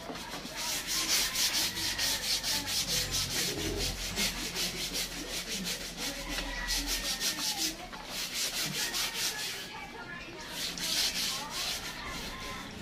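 Rapid back-and-forth scrubbing on a motorcycle's bodywork during a wash, at about four or five strokes a second. The scrubbing pauses about two-thirds of the way through, then comes back briefly.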